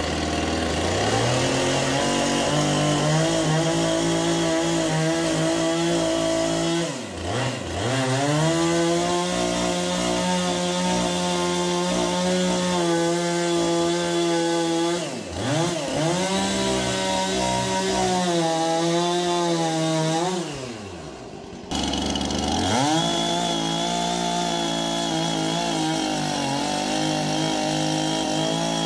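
Chainsaw engine running at high speed. Three times its pitch drops toward idle and climbs back up, about 7, 15 and 21 seconds in; the last drop is the longest, at about a second.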